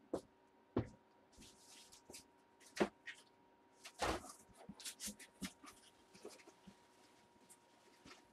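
Faint, scattered clicks, taps and rustles of cards and their packaging being handled, with the loudest taps about 3 and 4 seconds in.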